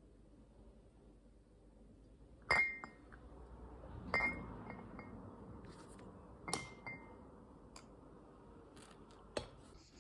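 Tableware clinking: three sharp clinks, each with a brief ring, about two seconds apart, among lighter taps and clicks.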